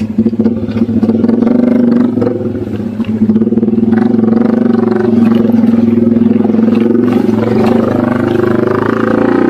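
Honda EX5 underbone motorcycle's single-cylinder four-stroke engine running steadily under load as it pulls slowly up a muddy dirt track, heard from on the bike. The revs dip briefly about two seconds in, then pick up again.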